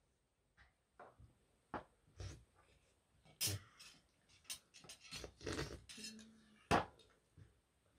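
Metal spoons clinking and scraping against metal bowls during a meal, in a string of irregular short clinks, the sharpest one about three-quarters of the way through.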